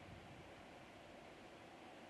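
Near silence: a faint, steady hiss of outdoor background noise.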